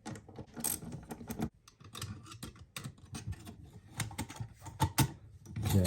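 Irregular light clicks and taps of small parts being handled: wires being looped and hooked onto the terminal screws of a new wall light switch.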